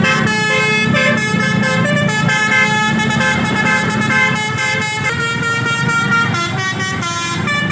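Bus telolet musical horn (Basuri type) playing a tune: several horn tones sound together and step quickly from note to note without pause, over a low rumble.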